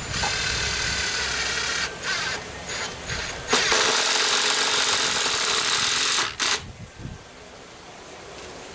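A power tool's motor running in bursts: about two seconds, a few short blips, a longer run of about three seconds, then one brief blip before it stops.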